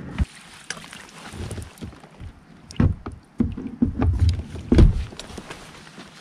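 Irregular knocks and bumps on a kayak, a handful of separate hits with the heaviest ones about three and five seconds in, from gear or a catch being handled on board.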